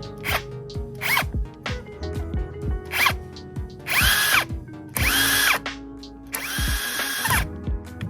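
Ingco brushless cordless impact driver driving a screw into wood in short trigger pulls, then three longer bursts in the second half, its motor whine rising and falling with each. Background music plays underneath.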